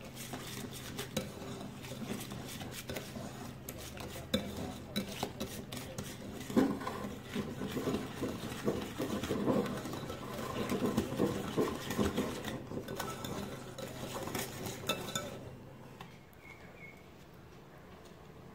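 Wire whisk beating thick cake batter in a mixing bowl, with rapid clinking and scraping of the whisk against the bowl's sides. The whisking stops about sixteen seconds in.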